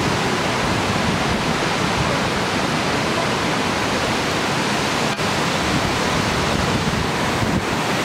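Steady, even rush of Stewart Falls, a waterfall and its rocky creek cascading, heard close to the base of the falls.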